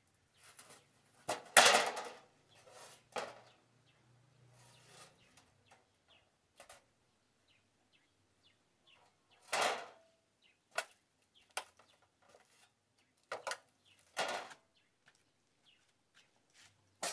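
A thin steel sheet handled and laid on the ground: scattered knocks and clatters, the loudest a short metallic clatter about one and a half seconds in, with a few sharper knocks later.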